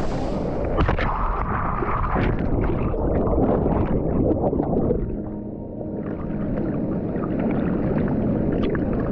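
Water rushing and gurgling, muffled and deep, with scattered knocks and a brief dip in level about five seconds in.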